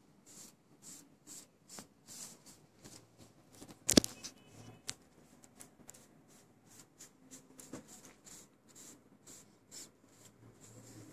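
A hand rubbing over a mat board coated with egg size, making quick swishing strokes about two to three a second. One sharp knock about four seconds in is the loudest sound, with a lighter one near the eight-second mark.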